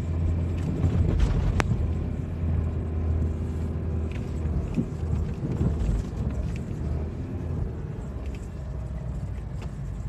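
Steady low rumble of a car driving on a snow-covered road, heard from inside the cabin, with a single sharp click about one and a half seconds in.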